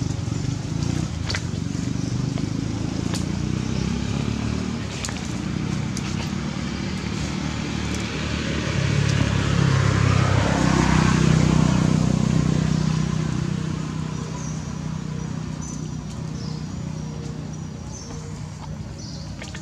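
Engine of a motor vehicle running nearby: it grows louder to a peak about ten to twelve seconds in, then fades away as it passes.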